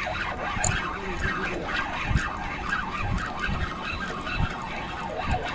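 Spinning reel being cranked to retrieve line, under irregular low rumbling bumps on the microphone.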